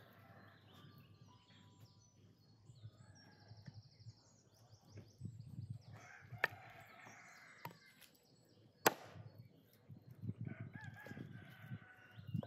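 A rooster crowing twice, with small birds chirping in the first few seconds. Two sharp knocks, the second the louder, as raw meat is handled on a wooden chopping block, with soft thumps between.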